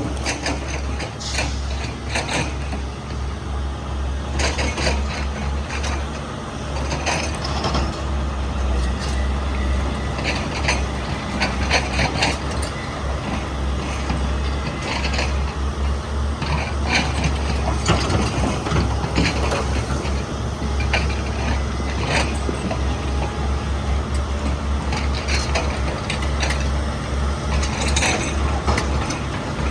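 XCMG 210 excavator's diesel engine running steadily, with irregular clanks and knocks every second or two as the machine works.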